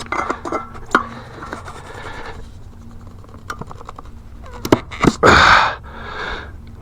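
Steel tire irons clicking against a motorcycle wheel rim while a tire bead is levered on, then a loud, strained breath out a little after five seconds in.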